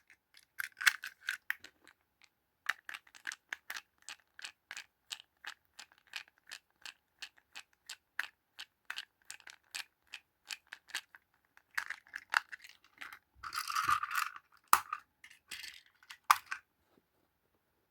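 Small sharp plastic clicks at an even pace of about three a second, followed near the end by a stretch of rustling and handling noise, from a battery-powered toy train engine being handled.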